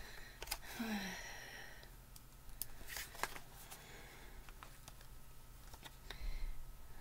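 Light clicks and taps of a plastic cosmetic gel tube and its cardboard box being handled, with a rustling scrape from about half a second to two seconds in.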